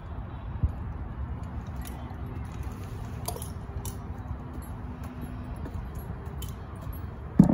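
Light metallic clinks of a climber's harness hardware (carabiners and rope gear) as he climbs a palm trunk on spurs, over a steady low background rumble, with a dull thump about half a second in and a louder knock at the very end.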